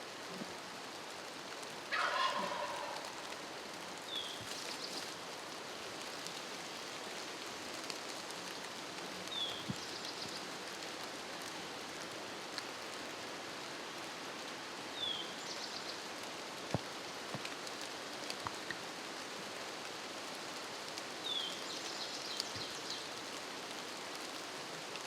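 A wild turkey gobbler gobbles once, a loud rattling call about two seconds in. A songbird then repeats a short high song four times over a steady background hiss.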